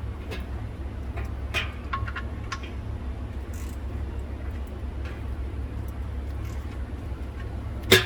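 Steady low hum of the shop with a few light metallic clicks as the oil drain plug is threaded back into the steel oil pan by hand. A sharp double clank of metal near the end.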